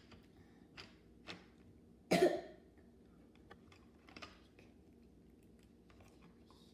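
A person coughing once, a short sharp cough about two seconds in, with a few faint clicks before and after it.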